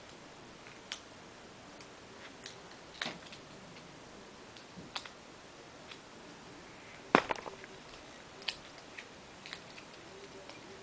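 Quiet room tone with scattered faint clicks and knocks, about one every second or two. The loudest is a sharp knock about seven seconds in, followed by a few smaller taps.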